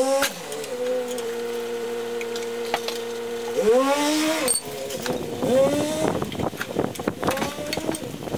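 An engine's drone whose pitch rises, holds steady, then climbs and falls again, like a vehicle accelerating. From about five seconds in, a run of clicks and knocks joins it.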